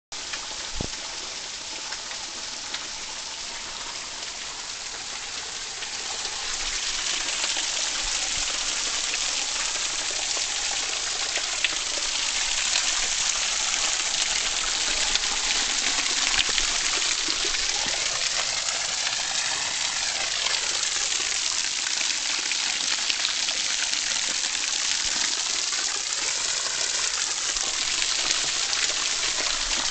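Waterfall rushing with a steady, dense hiss of falling water, growing louder about six seconds in.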